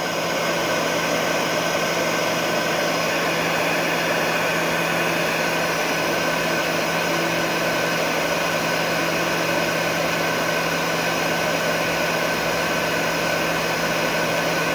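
Electric heat gun running steadily: a constant motor hum under the rush of blown air.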